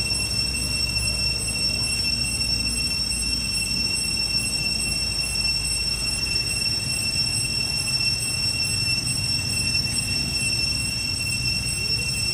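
Steady high-pitched whine of several even tones, unbroken throughout, over a low steady rumble.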